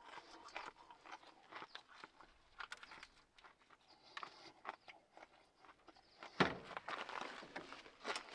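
Faint clicks and rustling of hands handling food and paper. About six and a half seconds in comes a louder knock, followed by a short stretch of rustling.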